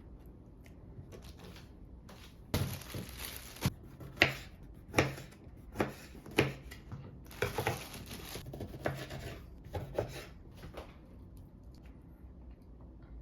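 Things being handled: a rustle lasting about a second, then a string of separate clicks and knocks, about one every half second to a second.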